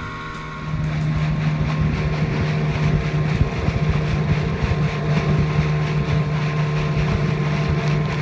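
Outboard motor of a small aluminium boat running steadily at speed, a constant low drone under a rushing noise of wind and water; the sound gets louder less than a second in.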